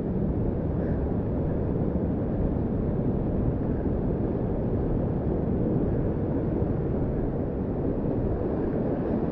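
Steady rushing of whitewater rapids on a steep creek, an even noise without breaks.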